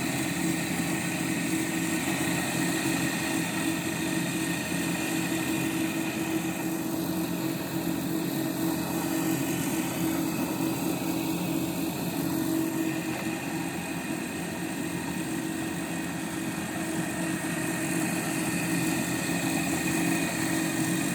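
Homemade turbine aerator driven by a 125 W electric water-pump motor, running with a steady hum over a constant hiss.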